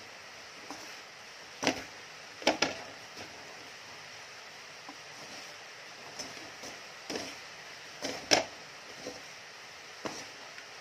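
Wooden spatula scraping and knocking against a metal wok as sugar-coated candied ginger is tossed dry, about half a dozen sharp strokes a few seconds apart, the loudest about eight seconds in. Under it, a steady hiss of rain.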